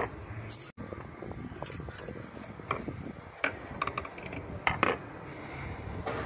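Sharp metallic clinks and knocks, about half a dozen, as a DAF MX-11 fuel pump unit is worked out of its bore in the engine block and handled. The loudest clatter comes near the end.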